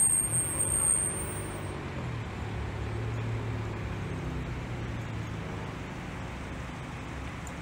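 Traffic noise from a queue of rush-hour cars and vans, stopped and creeping forward: a steady low engine rumble, loudest in the first second.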